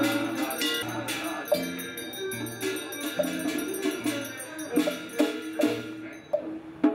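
Music with struck bells and percussion in a steady repeating rhythm, sharp ringing strikes over a low two-note pattern.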